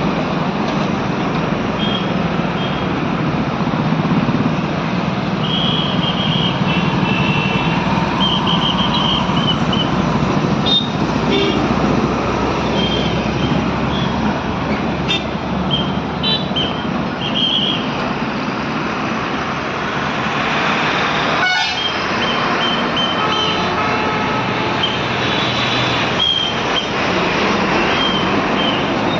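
Dense slow-moving highway traffic, with trucks, buses, cars and motorcycles running in a jam, and vehicle horns tooting many times in short blasts over a steady engine and tyre din.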